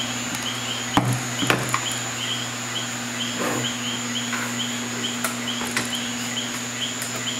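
A metal bread-machine pan knocks against a wooden cutting board a few times about a second in as it is turned upside down to release the baked loaf. Throughout there is a steady hum and a high chirp repeating two or three times a second.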